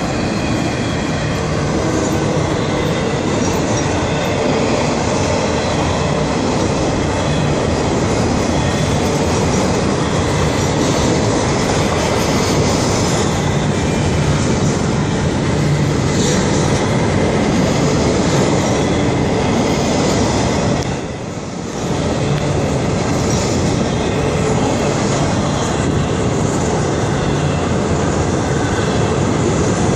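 Florida East Coast Railway freight train passing at speed: the locomotives go by, then the intermodal cars roll past with a steady, loud rumble of wheels on the rails. The sound dips briefly a little past two-thirds of the way through.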